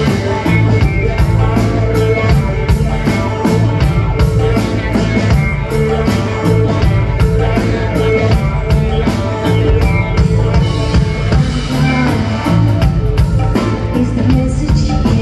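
Live rock band playing through the hall's PA: a drum kit keeps a steady beat under electric guitar and bass guitar.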